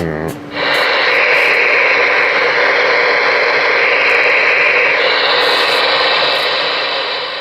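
Galaxy DX-98VHP ten-meter radio's speaker hissing with loud, steady AM static, starting about half a second in and changing slightly in tone about five seconds in.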